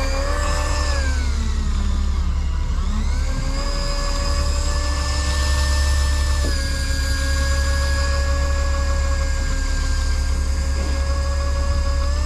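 A motor whine that dips in pitch and climbs back over the first three seconds, then holds steady with a slight step down partway through, over a constant low engine hum.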